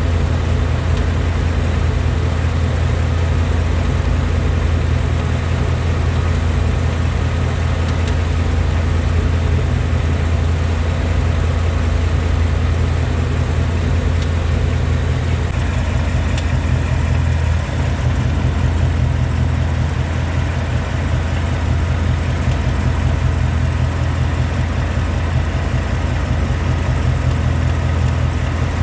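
2020 Ford Mustang GT's 5.0-litre Coyote V8 idling steadily, with a light metallic ticking. The dealer calls this ticking Ford's "typewriter noise", an issue of 2018-and-up GTs that they put down to the computer feeding the engine very little fuel at idle.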